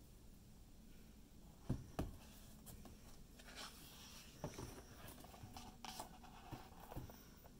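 Pages of a large artbook being turned by hand: quiet paper rustling and sliding, with two sharp taps about two seconds in and a few lighter taps and rustles after.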